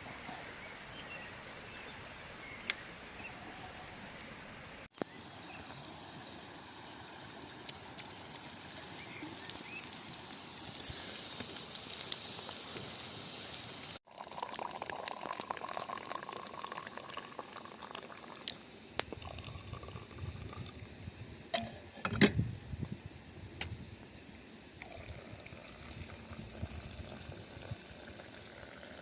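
Liquid bubbling and sizzling in a pot over a Finnish candle stump fire, with scattered crackling pops from the fire. A sharp knock about three quarters of the way through is the loudest sound, and the sound cuts off abruptly twice.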